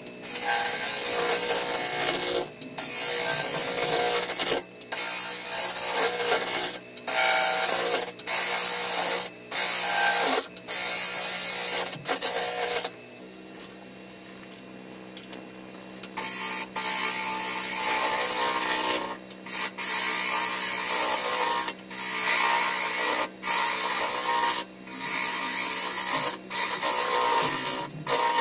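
Fast-forwarded sound of a carbide turning tool cutting a spinning ash bowl blank on a Laguna lathe: a loud rushing scrape in repeated passes, each cut off briefly as the tool lifts. The lathe's steady hum runs underneath, and for a few seconds about halfway through it is all that is heard.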